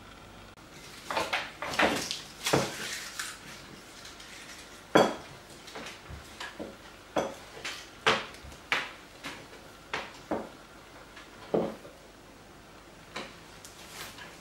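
Tableware clinking at the table: a dozen or so sharp, irregular clinks and knocks of a spoon and plates being handled, the loudest about five seconds in.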